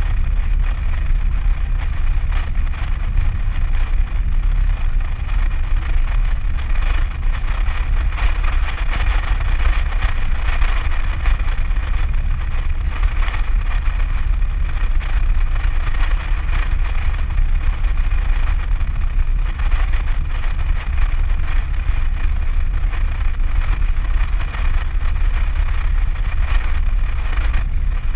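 Steady road noise inside a Nissan Navara's cab at highway speed: a heavy low rumble with tyre and wind hiss over it.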